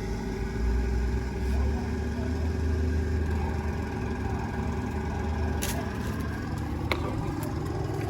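Portable air compressor's engine running steadily with a low, even drone. Two short sharp clicks come near the end.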